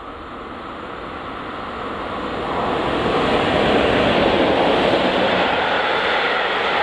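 A freight train hauled by two class 143 electric locomotives approaches and passes, growing louder for the first three seconds or so. It then stays loud and steady as the locomotives and the container wagons roll by.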